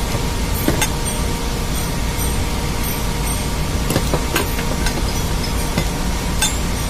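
Steady low drone of running ship's engine-room machinery, with a few sharp metal clinks as a gear puller is worked on an electric motor rotor's shaft to draw off its bearing.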